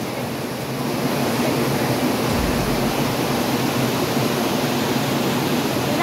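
Waterfall and rapids: steady rushing white water pouring over rocks.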